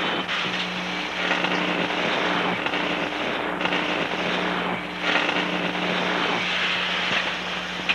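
Automatic welding machines crackling and hissing unevenly over a steady electrical hum.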